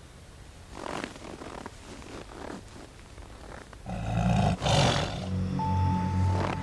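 Amur tiger growling and roaring: quiet, rough growls at first, then a loud, deep roar from about four seconds in.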